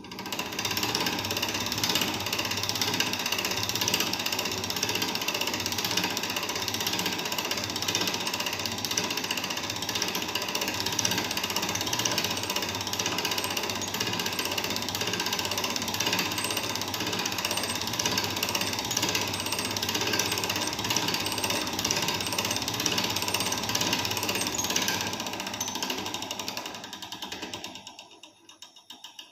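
Hand-cranked laboratory centrifuge being turned, its gear train running with a dense, rapid clicking as the test-tube head spins to settle a precipitate. Near the end the sound fades away as the cranking stops and the head runs down.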